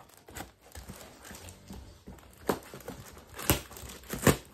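Cardboard shipping box being cut and pulled open: light snips and rustles of scissors on packing tape, then three sharper knocks and rips as the cardboard is pulled apart in the second half.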